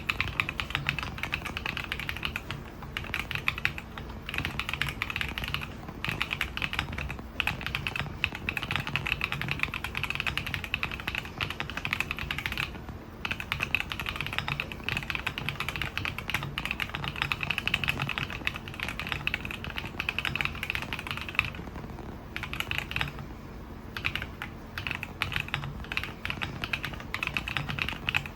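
Fast, continuous typing on a stock, unmodified MonsGeek M3 full-aluminium gasket-mount mechanical keyboard with Haimu Mint Lemon switches and dye-sublimated PBT keycaps. The keystroke clacks come in a dense stream, with brief pauses every few seconds.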